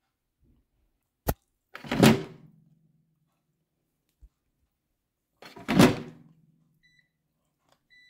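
Air fryer basket pushed back into the fryer, closing with a loud thunk about two seconds in and again about six seconds in, a sharp click just before the first. Near the end, short faint beeps from the touch control panel as its buttons are pressed.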